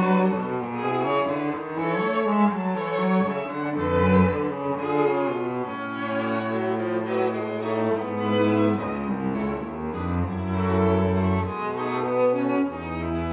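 Background music of bowed strings: sustained cello and violin notes with a low bass line.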